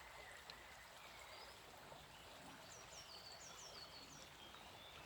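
Near silence: faint outdoor ambience, with a small bird giving a quick series of short, high, falling chirps about three seconds in.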